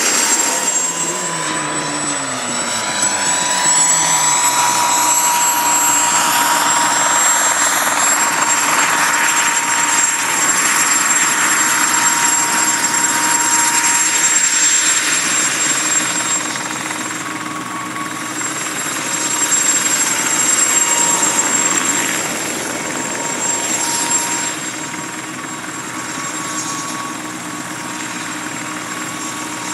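Mosquito XET ultralight helicopter running, a steady whine over the beat and rush of the rotor, with the pitch sliding down during the first few seconds. It grows somewhat quieter in the second half.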